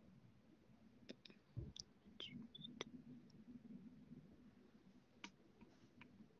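Near silence with about seven faint, short clicks scattered through and a soft low thump about a second and a half in.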